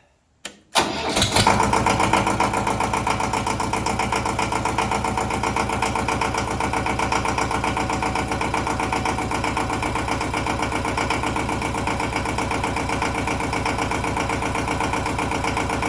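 Ford 1700 compact tractor's three-cylinder Shibaura diesel engine starting about a second in after a short click, catching at once, then idling steadily with an even pulse.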